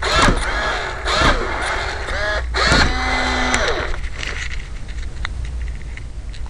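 WowWee Robosapien V2 toy robot making its electronic vocal noises: four swooping calls in the first four seconds, the last held and then falling away, with a low hum and scattered clicks. After that, only faint clicks remain.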